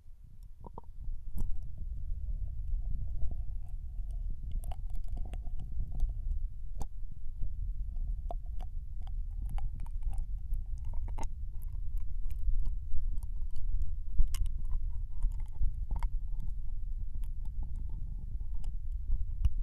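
Ear-licking sounds close on a binaural dummy-head microphone, in the right ear: a low, muffled rumble of mouth and tongue against the mic's ear, with many wet mouth clicks scattered through it. It starts about a second in.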